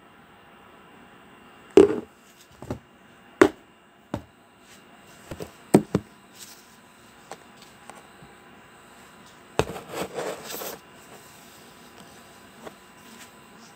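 Sharp knocks and clicks of a glass Nescafé instant-coffee jar and its plastic lid being handled, about seven in the first six seconds. A short scraping rustle about ten seconds in.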